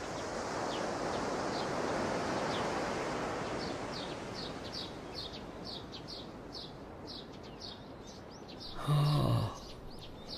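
Small birds chirping: short high chirps, a few at first and then coming quickly one after another from about four seconds in, over a soft rushing outdoor ambience that fades through the first half. A brief low human vocal sound breaks in near the end.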